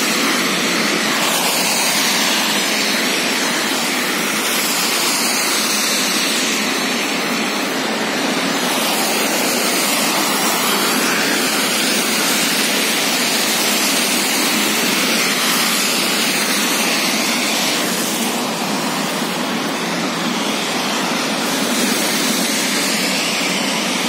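Cars passing on a rain-wet road, their tyres hissing through the water, each one swelling and fading as it goes by, over a steady wash of traffic and rain noise.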